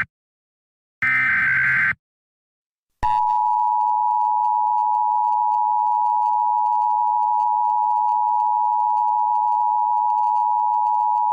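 The last of three EAS SAME header data bursts, a one-second buzzy electronic warble about a second in. After a second's pause comes the Emergency Alert System attention signal, a steady 853 and 960 Hz two-tone beep held for about eight seconds and cut off abruptly.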